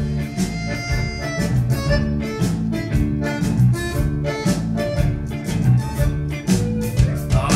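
Music with a steady drum beat under a pitched melody.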